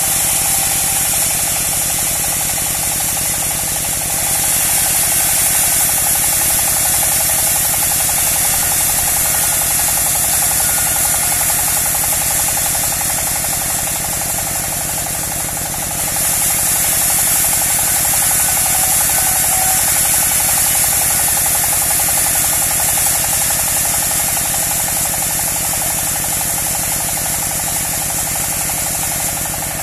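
Engine-driven portable bandsaw sawmill running steadily, a low engine hum under a high hiss. The sound grows louder and hissier twice, about four seconds in and again about sixteen seconds in, each time for several seconds.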